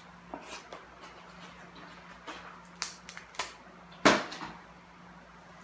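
Scattered clicks and cracks of crab-leg shells being broken apart, with the loudest sharp crack about four seconds in.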